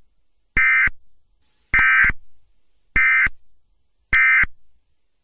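Emergency Alert System digital data tones: four short, identical bursts, each about a third of a second long, repeating roughly every 1.2 seconds.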